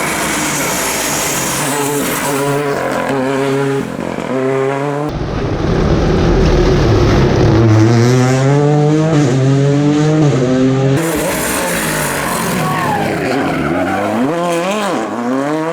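Rally cars accelerating hard, the engine note climbing and dropping back with each gear change. The sound cuts abruptly to a different pass about five seconds in and again about eleven seconds in.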